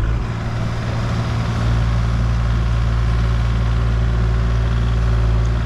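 Heavy machine's engine running steadily with a deep hum while its boom is worked; a lower note comes in about a second and a half in.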